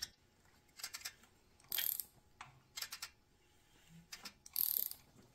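Socket ratchet clicking in about five short bursts, a wrench turning the flat-six engine's crankshaft to check cam timing.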